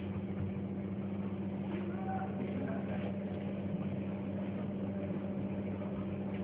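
Ultrasonic plastic-tube sealing machine switched on and idling, giving a steady low electrical hum.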